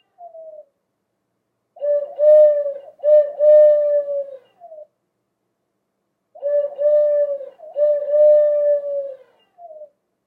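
Owl hooting: two series of about four pitched hoots, each series ending in a short falling note.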